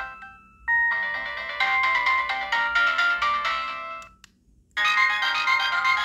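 Samsung SGH-D600 mobile phone ringtones playing, bright electronic melodies of chiming notes. One tune fades out right at the start, another plays from under a second in until about four seconds, and after a half-second gap a new tune starts near the five-second mark.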